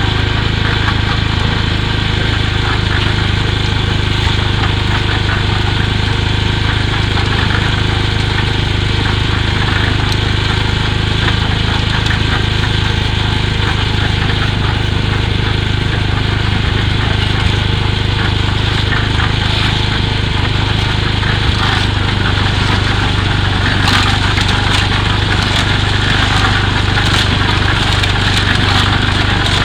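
Concrete mixer's engine running steadily with a constant low hum, with irregular clatter and clicks over it near the end.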